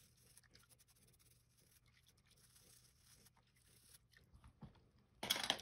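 Faint, rapid scratchy scrubbing of a toothbrush on small plastic parts in a bowl of soapy water, with a brief louder noise near the end.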